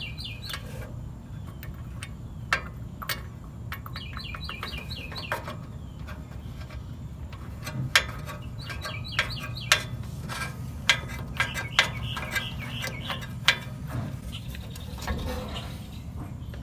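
Socket ratchet clicking in several short runs of rapid, even clicks while the new spark plug is threaded into the Briggs & Stratton mower engine, with a few sharp knocks of tools in between.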